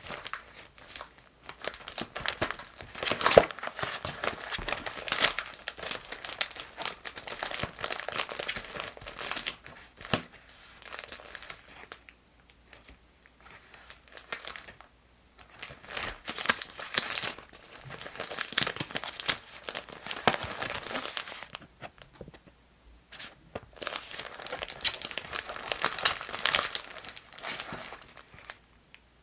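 Paper and plastic diary-decorating materials being handled close up: crinkling and rustling with small clicks and taps, some of it like tearing or peeling. It comes in three busy stretches with short pauses between them.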